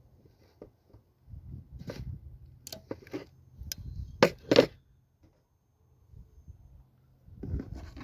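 Handling noise: scattered short scrapes and clicks of hands and tools on the connector and wiring, the loudest two sharp clicks about four seconds in, then a brief rustle near the end.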